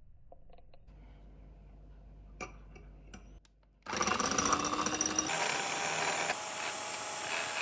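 A few light clicks, then an electric hand mixer switches on about four seconds in, its motor whirring up to speed as the beaters whip the dalgona coffee mixture. The motor's sound shifts about a second and a half later and stays steady after that.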